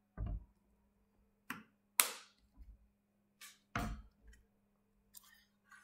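Scattered desk handling noises near the microphone, about six in all. The sharpest click comes about two seconds in, and knocks near the start and a little before four seconds are duller and deeper. A faint steady hum runs underneath.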